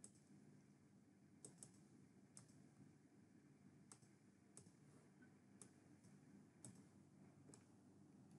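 Faint computer mouse clicks, about nine sharp clicks at irregular intervals against near silence.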